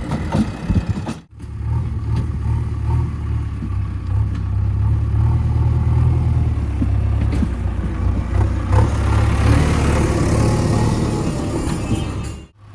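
Heavy diesel engine of earthmoving machinery running steadily with a deep hum and some clatter, swelling with louder, higher noise about nine seconds in. The sound breaks off abruptly about a second in and again near the end.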